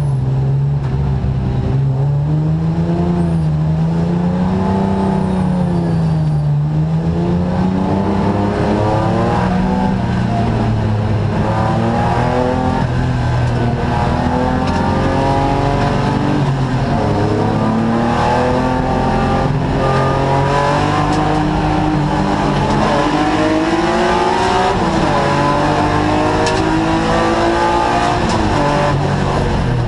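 Race car engine heard from inside the cockpit, its revs swinging gently up and down at first, then climbing and dropping back again and again as it accelerates through the gears and shifts.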